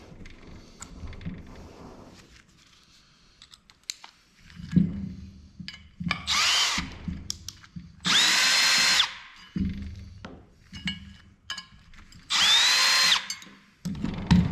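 Small electric screwdriver or drill motor running in three short bursts, each whining up to speed and then holding steady. Light clicks and knocks from handling parts fall between the runs.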